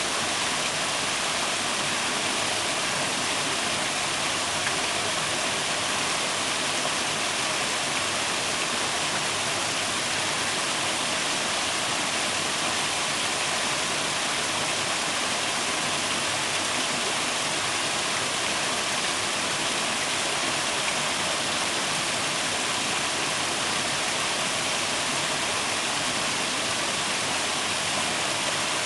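Waterfall rushing: a steady, even roar of falling water without pause.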